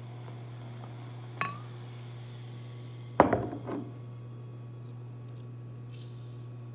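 Glass clinking at a large glass pitcher while a drink is mixed: one sharp, ringing clink about a second and a half in, then a louder cluster of clinks and rattles around three seconds in. A soft hiss follows near the end, over a steady low hum.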